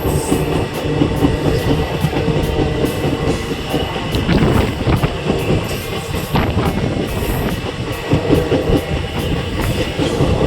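A passenger train of ICF coaches running along the line: a loud, steady rumble of wheels on the rails, with clatter from the running gear.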